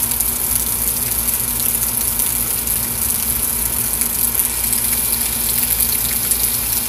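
Heavy thunderstorm rain pouring steadily, with water gushing and splashing.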